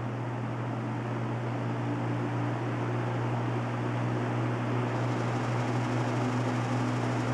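Holmes 20-inch box fan running: a steady electric motor hum under a noisy rush of air, growing slightly louder over the seconds. It is a noisy fan that moves little air.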